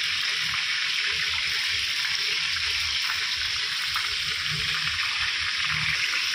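Steady hiss from a non-stick frying pan with a little cooking oil heating on the stove.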